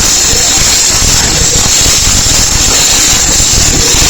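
Wire-feed welder arc crackling steadily as a weld bead is run along a steel T-joint.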